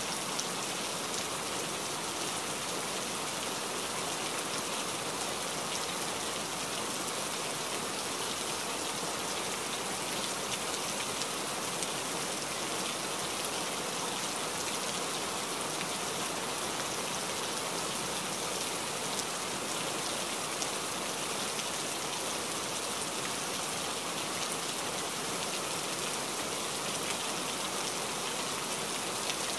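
Steady rainfall: a constant, even hiss of many drops with no breaks.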